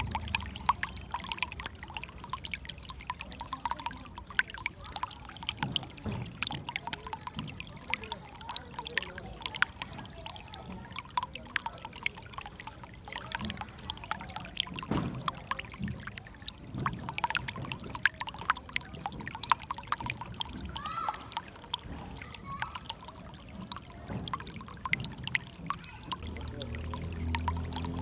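Shallow water trickling and splashing over stones: a steady gurgle full of many small splashes.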